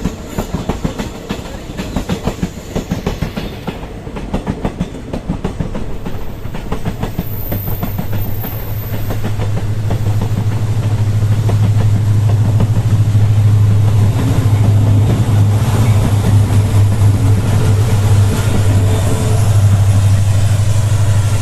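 Train passing: a rapid clickety-clack of wheels over rail joints, then from about eight seconds in a loud, steady low engine drone that grows louder toward the end.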